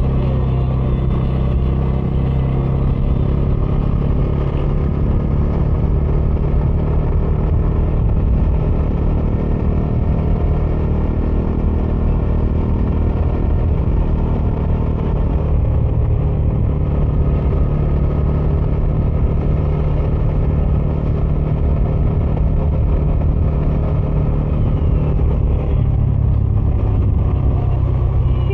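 Bajaj Dominar 400 single-cylinder motorcycle engine and stock exhaust running steadily under way while riding, the engine note holding mostly level and shifting slightly a few times.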